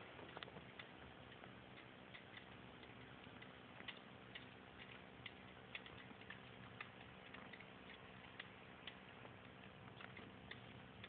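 Near silence: faint, short ticks about twice a second, fairly even, over a low steady hum.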